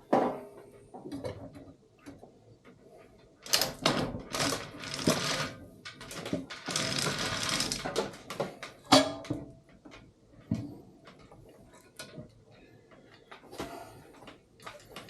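Metal parts and hand tools clinking and knocking on a workbench during cylinder-head teardown, with a few seconds of rapid rattling about six to eight seconds in.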